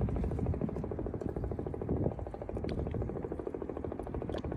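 A boat engine idling steadily, with a fine even pulsing and low rumble underneath.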